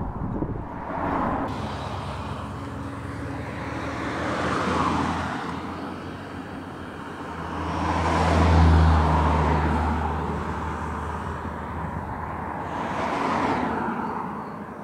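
A run of Holden Commodores driving past one after another, engine and tyre noise swelling and fading with each car, about four in all. The loudest pass comes about two-thirds of the way through, with a deep engine note.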